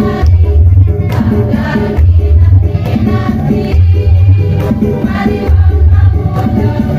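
A women's choir singing over backing music with a strong bass beat and regular drum hits.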